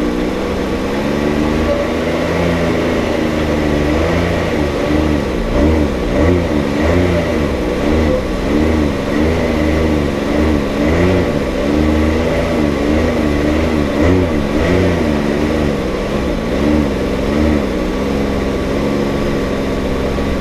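Can-Am Maverick X3's turbocharged three-cylinder engine running under load, its pitch rising and falling again and again as the throttle is worked.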